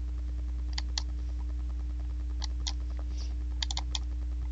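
A few sharp computer keyboard clicks: a pair about a second in, another pair midway, and a quick run of four near the end, over a steady low electrical hum.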